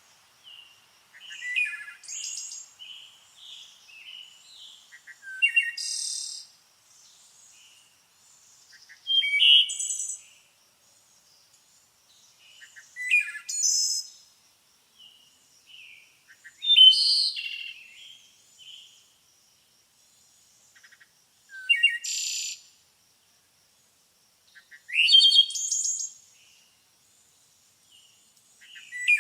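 Birds singing: a loud, high song phrase repeats about every four seconds, with softer chirps and short calls in between.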